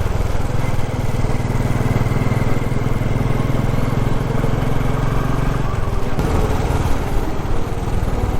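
Royal Enfield Classic 350's single-cylinder engine running steadily as the motorcycle rides along, its note shifting slightly about six seconds in.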